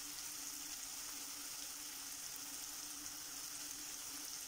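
Onion, Scotch bonnet and bell pepper frying in oil in a non-stick pan: a steady, quiet sizzle.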